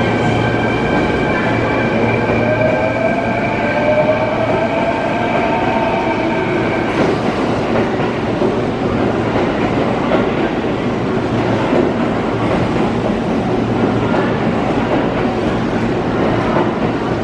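Kintetsu commuter electric train pulling out of an underground station platform, gathering speed. A whine rises in pitch over the first few seconds, then the cars rumble steadily past on the track.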